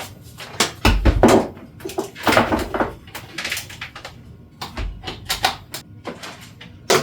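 A cordless stick vacuum and its charger being handled and set up: several clunks and scraping knocks of hard plastic parts, with a sharp click near the end.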